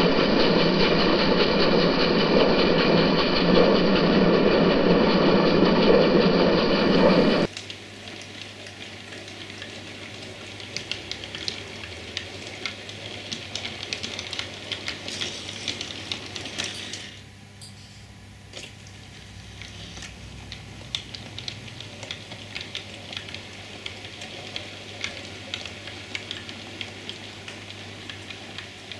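Loud, dense steam locomotive running sound that cuts off sharply about seven and a half seconds in. After that comes the quieter sound of a model train rolling along the track: many small clicks as the wheels cross rail joints, over a low steady hum.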